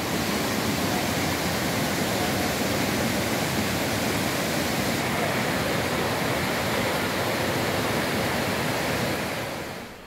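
Water of the Japoré River rushing over rock ledges in shallow rapids: a steady, even rush that fades out near the end.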